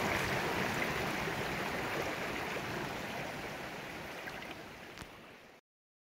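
Rushing mountain-stream water, a steady hiss that fades out gradually and cuts to silence near the end, with one faint click shortly before it stops.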